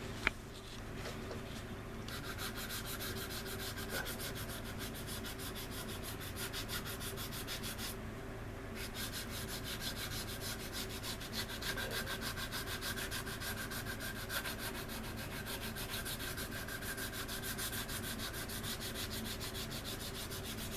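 Sanding board rubbed back and forth along the seam of a resin model wing's leading edge, in quick, even strokes, pausing briefly about eight seconds in. A single small click sounds just after the start.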